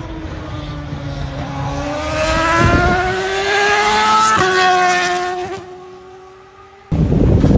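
Single-seater racing car engine accelerating past, its pitch rising steadily, then dropping sharply about four and a half seconds in and fading as the car moves away. Near the end it is cut off suddenly by a louder, rough engine noise.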